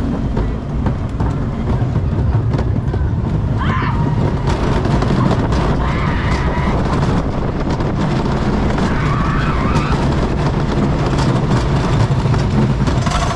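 Wooden roller coaster train rolling on its wheels along wooden track, a steady low rumble with scattered clicks.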